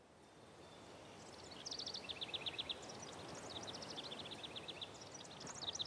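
A small songbird singing rapid trills, three phrases in all, each a quick run of high notes that drops in pitch partway through. Under it, a faint steady outdoor hiss fades in at the start.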